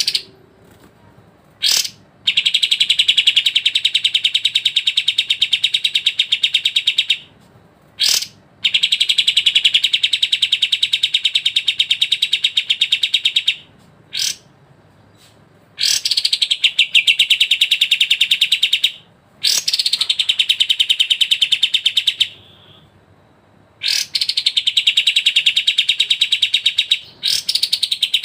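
Songbird singing long, rapid, buzzy trills of three to five seconds each, five times over. Each trill is preceded by a short sharp note, with brief pauses between phrases.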